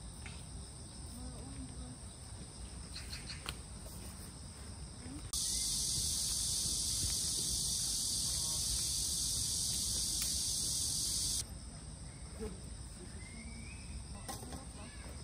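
Summer insect chorus outdoors: steady high-pitched chirring, with a much louder, denser buzz of cicadas in the pine trees from about five to eleven seconds in that starts and stops abruptly. A few faint clicks are heard.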